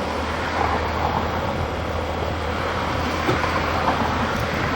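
Steady low mechanical rumble with a hiss over it and a few faint knocks.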